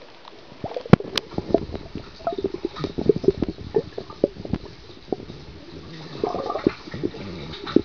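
Swimming-pool water heard by a camera dipped under the surface: a couple of sharp splashing clicks about a second in, then muffled bubbling and gurgling full of small pops as a child swims and kicks nearby.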